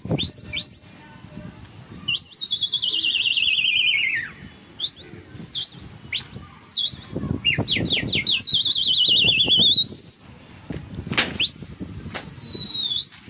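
Shrill human whistling of the kind pigeon flyers use to drive their flock aloft. It starts with quick rising chirps, then long warbling whistles that slide downward and a few short level blasts, and ends with a long whistle that falls, then rises.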